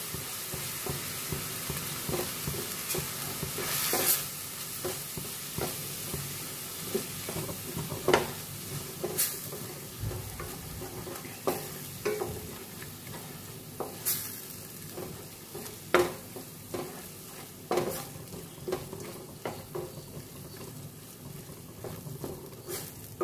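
Onion-tomato masala with sambar powder sizzling in oil in a stainless steel pan, stirred with a wooden spatula that gives irregular knocks and scrapes against the pan over a steady frying hiss.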